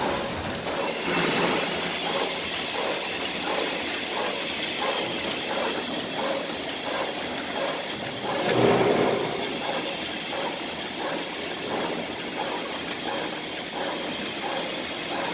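Plastic rolling bag making machines running, a fast, steady mechanical clatter of rollers and cutting/sealing strokes, with a louder swell about nine seconds in.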